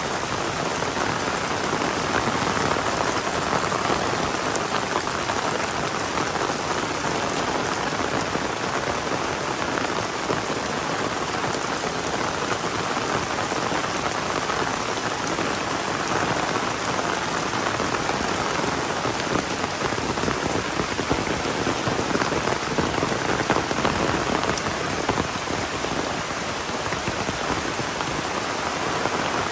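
Heavy rain falling steadily: a dense, even hiss of countless drops striking surfaces, with no let-up.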